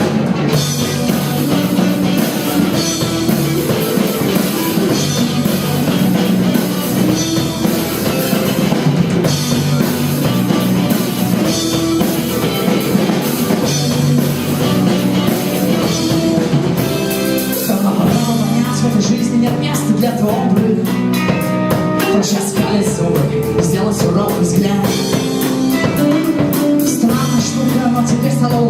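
Live rock band playing with guitar and a drum kit; the drumming gets busier about two-thirds of the way in.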